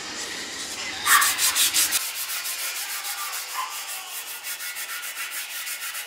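Hand sanding a painted steel motorcycle gas tank, first with sandpaper and then with a green abrasive scouring pad: quick back-and-forth rubbing strokes, about five a second. The strokes are wearing through the black paint to the bare metal.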